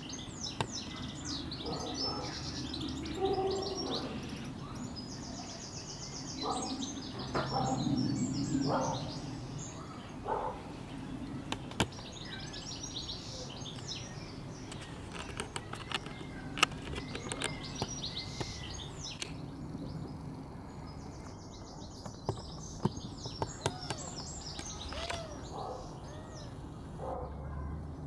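Garden songbirds chirping and singing, several at once, with short, quick notes and a couple of rapid buzzy trills, plus a few brief lower calls in the first ten seconds.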